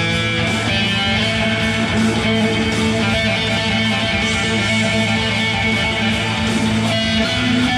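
Electric guitar played through amplifiers: notes ring and sustain over a steady low drone, and the pitches shift every few seconds.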